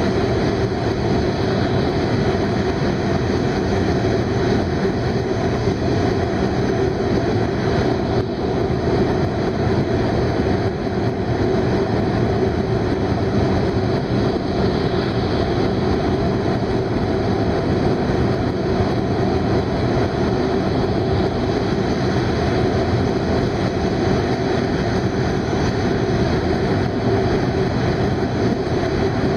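Steady running noise of a Hokuriku Shinkansen E7/W7-series train at speed, heard inside the passenger car through a tunnel: an even, unbroken noise of wheels and air with no separate events.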